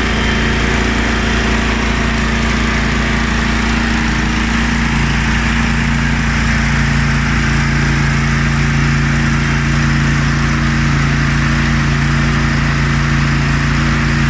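Gasoline engine of a portable air compressor running steadily. A deeper hum in its note grows stronger about five seconds in.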